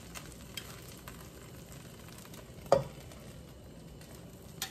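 Oil sizzling softly in a stainless steel skillet on a gas burner, with one sharp knock a little past halfway and a smaller click near the end.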